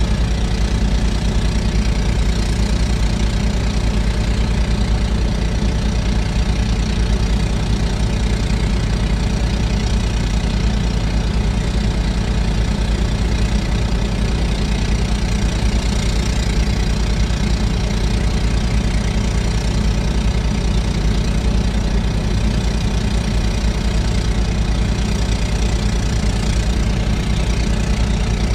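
Volvo excavator's diesel engine running steadily, with no breaks or changes in level.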